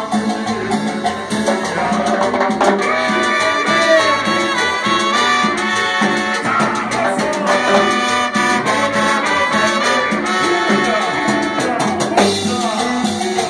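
Live cumbia band playing, its horn section of a trombone and two trumpets carrying the tune over steady percussion. The horns come in strongly about two and a half seconds in.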